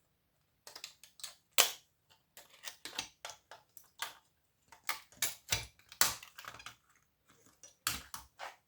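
Electronic components being snapped and pried off a power-supply circuit board: irregular sharp clicks and cracks. The loudest come about a second and a half in and again about six seconds in.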